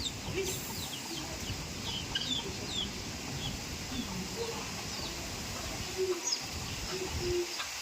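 Chickens clucking and small birds chirping repeatedly over a steady rumble of wind buffeting the microphone.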